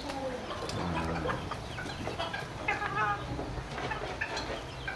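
Chickens clucking, a few short scattered calls over a steady low background.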